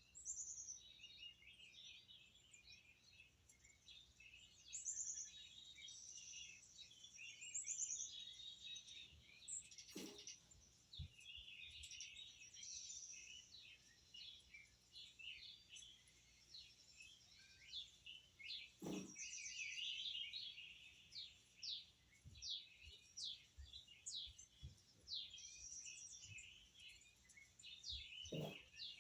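Many small birds chirping and singing together, a continuous tangle of high, quick chirps and trills. Three short, faint clicks or knocks cut through it, about ten, nineteen and twenty-eight seconds in.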